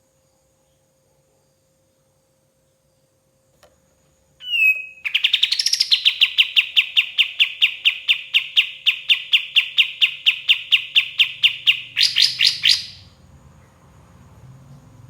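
A kapas tembak songbird singing: after a short slurred note, a long, even run of rapidly repeated sharp notes, about four a second, finishing with a quicker, higher flourish.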